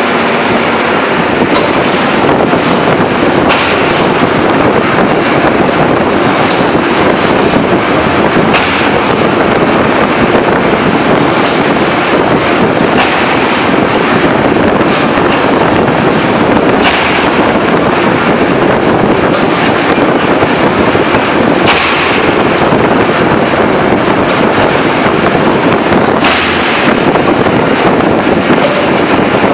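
Heavy open-die forging press at work on a red-hot steel ring: a loud, steady industrial din with sharp cracks every second or two.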